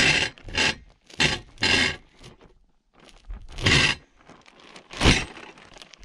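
Footsteps: four quick steps about half a second apart, a short pause, then two more spaced-out steps, the last the loudest.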